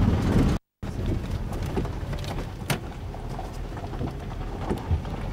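Car cabin noise while driving on a rough mountain dirt road: low engine and road rumble with occasional sharp knocks. The sound cuts out briefly about half a second in.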